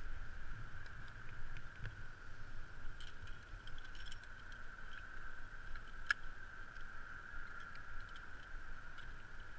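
Metal climbing gear, carabiners and quickdraws, clinking lightly in several small clicks, with one sharper clink about six seconds in. Underneath is a low wind rumble on the helmet camera's microphone and a faint steady high tone.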